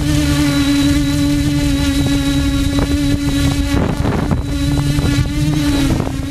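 Quadcopter drone's electric motors and propellers whirring with a steady buzzing hum. The pitch wavers and breaks briefly about two-thirds of the way through, then settles again.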